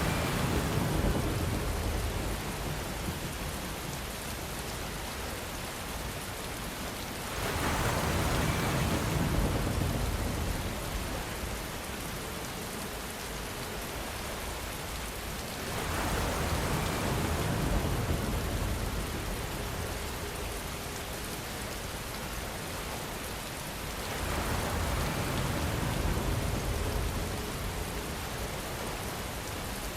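Steady rainfall, a dense hiss of drops, that swells louder with a deeper low rumble about every eight seconds, four times.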